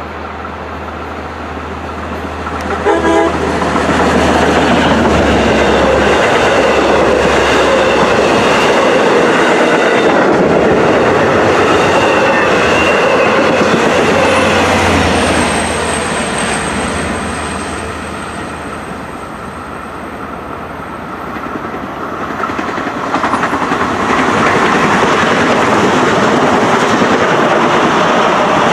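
Long Island Rail Road commuter train passing through the station with wheels clattering over the rail joints. A short horn blast sounds about three seconds in. The sound eases off around twenty seconds, then builds again from about twenty-three seconds as more train passes.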